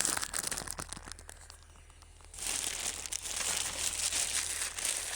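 Packaging crinkling and rustling as it is handled, a dense crackle of small clicks that eases off about a second in and starts up again around two and a half seconds in.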